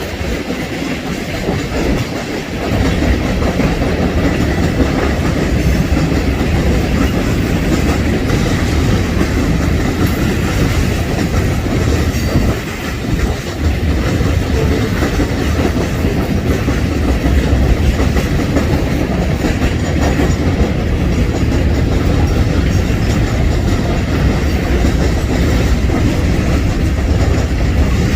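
Freight train cars rolling past close by, steel wheels clattering on the rails in a steady, loud din.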